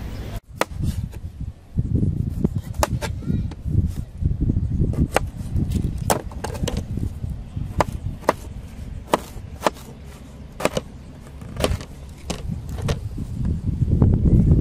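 Kitchen knife tapping and knocking on a wooden cutting board, sharp clicks at irregular intervals, over low thumps and rustling of food being handled on the board.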